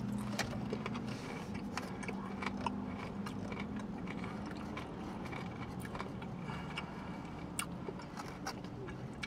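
A person chewing a bite of bacon crumbles, with scattered small mouth clicks, over a steady low hum in a car's cabin.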